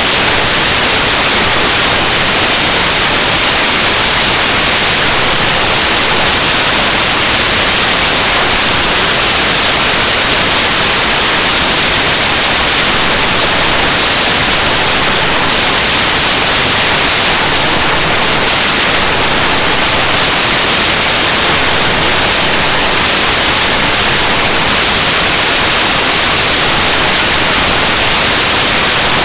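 Loud, steady static hiss that drowns out all other sound: a fault in the audio recording rather than anything in the room.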